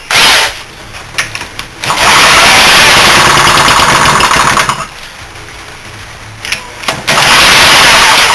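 A Briggs & Stratton single-cylinder engine with a shaved, high-compression head and no governor is spun over and fires. It runs loud and fast for about three seconds, dies away, then catches and runs again for about a second near the end: a cold start on a freshly rebuilt engine that won't yet keep running.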